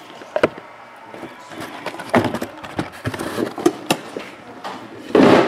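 Handling noise from a shrink-wrapped cardboard box of baseball cards being lifted and set on a table: a series of short knocks and taps, with a louder, longer noise near the end.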